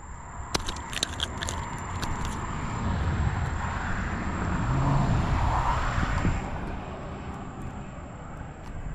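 A car passing on the road, its tyre and engine noise building over a few seconds and fading away. A few sharp clicks come in the first couple of seconds.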